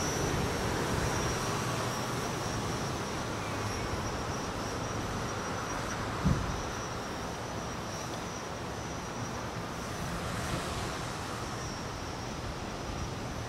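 Distant radio-controlled tricopter's electric motors and propellers running in flight, under steady wind noise on the microphone. A brief thump about six seconds in.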